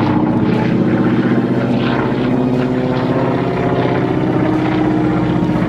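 North American Harvard Mk. II in flight, its Pratt & Whitney R-1340 Wasp radial engine and propeller giving a steady, even sound.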